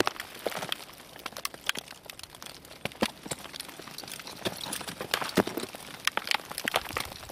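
Crampons and ice axes biting into snow and ice at close range: irregular crunches and sharp clicks as the climber kicks and swings upward.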